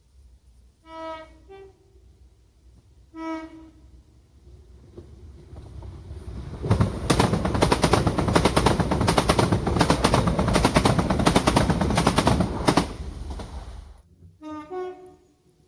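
A UK train sounds its two-tone horn, a short low note followed by a higher one, then another low note a couple of seconds later. About six seconds in, the train passes close at speed for some six seconds, its wheels clattering rapidly on the rails, then fades away. A horn sounds again near the end.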